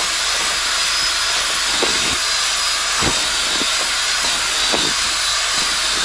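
Cordless drill running steadily at speed, turning a wire mixing paddle through dry groundbait in a bowl, with a few short knocks along the way.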